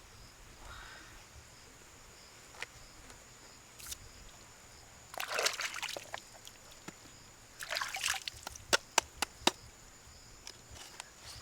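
Water splashing and sloshing twice, a couple of seconds apart, followed by a few sharp clicks.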